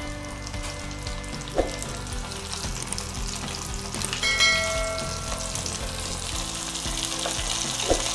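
Breaded prawns deep-frying in hot oil in a steel kadai at medium heat: a steady, dense sizzle of bubbling oil. A short bright chime sounds about four seconds in.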